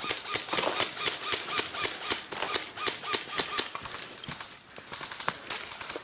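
Airsoft guns firing: rapid, irregular sharp snapping shots.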